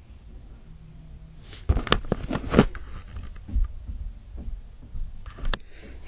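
Low rumble, then a cluster of thumps and clicks about two seconds in, with a few more scattered knocks later.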